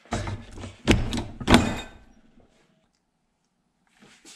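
Metal clunking on a Magnum bench-top shear, brake and roll machine as a sheet is worked in it: three knocks in the first two seconds, the last one ringing.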